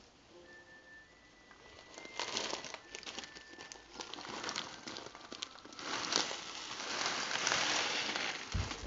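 Crinkling and rustling as dry textured soy granules are poured into a pan of hot water, the crackly rush building up and loudest in the last few seconds.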